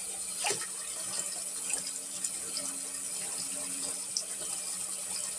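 Water running steadily, with a few small knocks and clicks.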